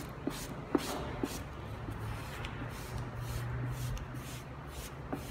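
Hand squeegee being swept repeatedly over a wet-applied vinyl stripe still covered by its top transfer tape, a run of quick short rubbing strokes with a few light clicks in the first second.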